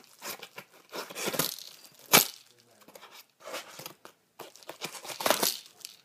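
Paper mailing envelope being torn and pulled open by hand: irregular rips and crinkles, with a sharp rip about two seconds in and another loud stretch of tearing a little after five seconds.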